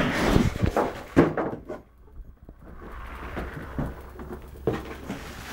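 Rummaging in a TV's cardboard box: packaging rustling, with a few knocks and bumps. It is loudest in the first second and a half and quieter after that.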